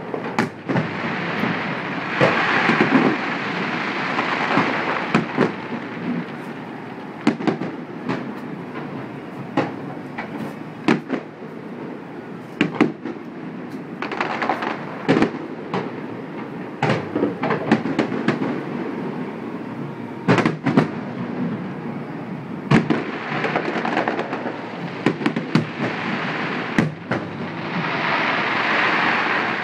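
Fireworks display: dozens of sharp bangs and booms going off irregularly, over a steady hiss that swells in several stretches.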